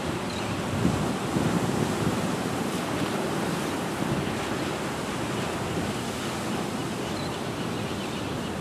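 Gentle Pacific Ocean surf breaking and washing up the beach: a steady rushing noise that swells about a second in.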